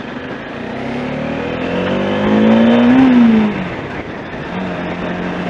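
Bajaj Dominar 400's single-cylinder engine accelerating, its pitch rising for about two seconds to its loudest, then dropping sharply about three and a half seconds in and running steadily after.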